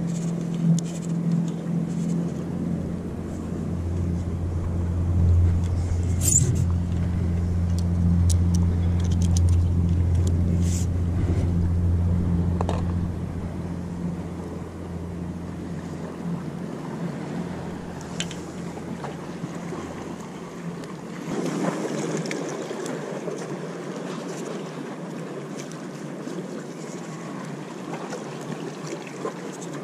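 A motorboat engine droning at a steady low pitch, fading away about two-thirds of the way through.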